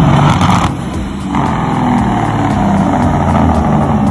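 Semi truck's diesel engine running loudly with heavy exhaust noise, easing off briefly about a second in and then picking up again.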